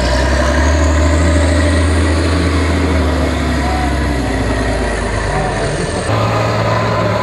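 Diesel engine of a six-wheeled trial truck working hard up a steep dirt climb, pouring black smoke under heavy load. A high whine rises in pitch over the first few seconds. The engine note changes abruptly about six seconds in.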